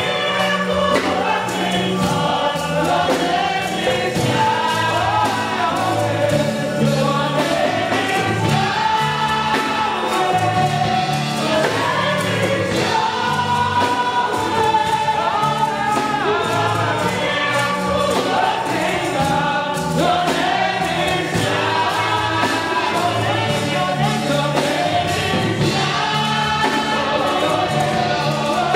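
A women's gospel choir singing praise and worship into microphones, several voices together, over a backing with a stepping bass line and a steady beat.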